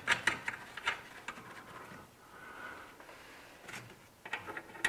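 Scattered small clicks and rustles of gloved hands threading the nuts loosely onto the studs of a new rear anti-roll bar drop link. The clicks come thicker near the start and again near the end, with a quieter spell in between.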